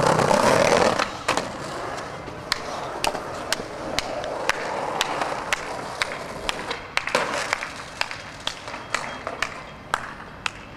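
Skateboard wheels rolling over pavement, loudest in the first second, with a regular run of sharp clicks about twice a second that come faster near the end.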